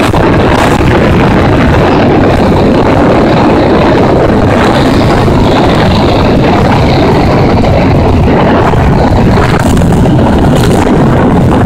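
Wind rushing over the microphone of a moving motorcycle, mixed with small motorcycle engines running at road speed. The sound is steady and very loud.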